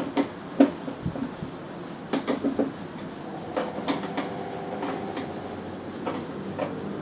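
Screwdriver tightening screws through slotted angle plates on the back of a TV: scattered light clicks and metallic taps. A faint steady hum joins about three seconds in.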